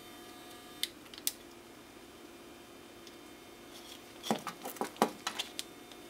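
Light clicks and taps of small objects being handled and set down on a work table, including a spool of solder put down: two sharp clicks about a second in, then a quick cluster of about eight in the last two seconds. A faint steady hum runs beneath.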